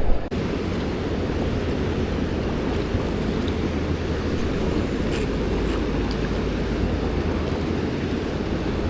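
Steady low rumble of wind buffeting the microphone, with a faint steady hum underneath.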